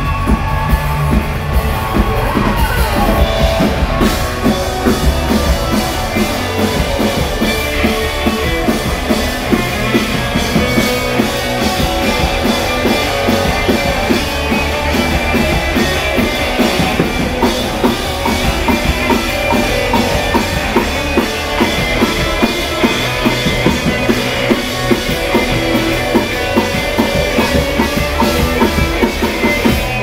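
Live rock band playing an instrumental passage with no singing: electric guitars over a drum kit keeping a steady, driving beat.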